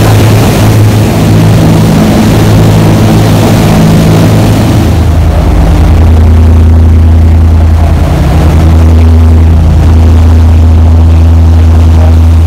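The 37-foot Topaz boat's engines running under way: a steady low drone over a hiss. About five seconds in, the engine note drops slightly and gets stronger while the hiss thins.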